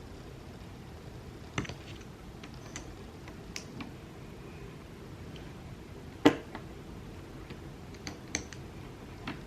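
Scattered sharp clicks and taps from small keyboard parts being handled, a few seconds apart, with one much louder click about six seconds in.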